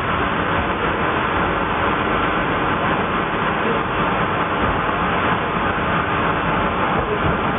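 Sawmill machinery running steadily as Douglas fir timber is milled: a loud, even, unbroken mechanical noise.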